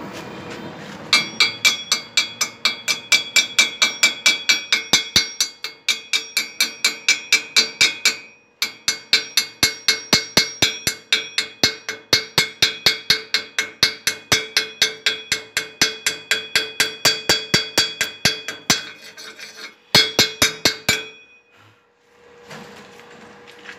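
Chipping hammer rapidly striking a stick-weld bead on thin steel plate, about five strikes a second with a ringing metallic tone, knocking the slag off the weld. The strikes pause briefly about 8 s in, stop about 19 s in, then come in one more short flurry.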